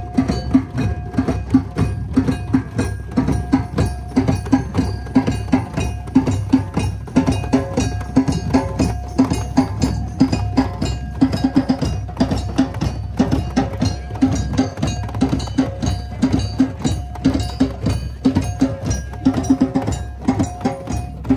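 Drum circle: many hand drums, djembes among them, played together by a crowd in a fast, steady rhythm.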